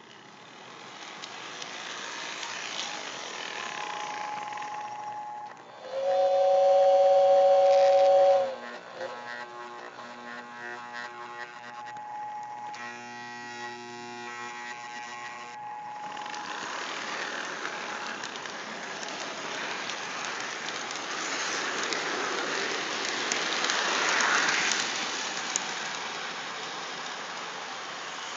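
Lionel model steam locomotive running on its track, its whistle sounding a loud, steady two-note chord for about two seconds starting some six seconds in, followed by fainter steady tones. The later part is the rushing rumble of the train running on the rails, swelling and fading as it comes past.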